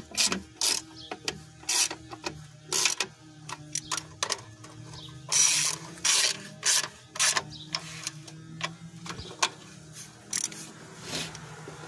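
Hand ratchet clicking in short, irregular runs as the valve cover bolts on a 5.7-litre V8 are run down snug, before final torquing to 60 inch-pounds. A faint steady hum sits underneath.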